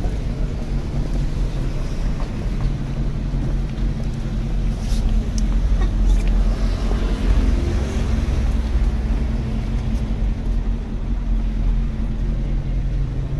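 Road traffic: a steady low engine rumble, with a hiss that swells and fades in the middle as a vehicle passes.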